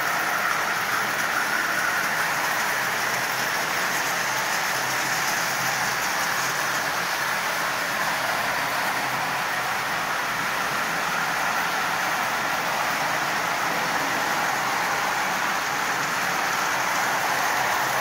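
Marx Commodore Vanderbilt tinplate toy train, its double-reduction motor pulling 24 tin litho cars around tinplate track: a steady, even rolling noise of the wheels on the rails. It runs smoothly at a constant speed, with no power loss.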